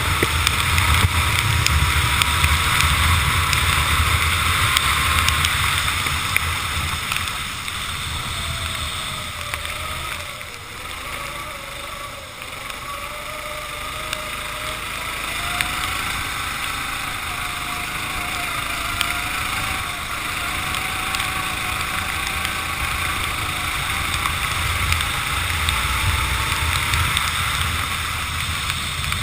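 Racing kart engine heard on board at speed, with heavy wind rumble on the microphone; the engine drops off about ten seconds in and then picks up again.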